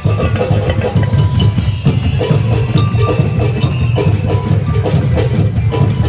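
Live drum troupe playing a fast, dense rhythm, with deep drum hits, sharper wood-block-like strikes, and a pitched melody running over the beat.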